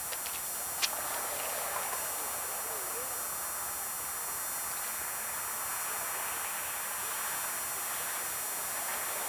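Steady hiss of road traffic, the sound of passing cars swelling and easing a little, with one sharp click about a second in.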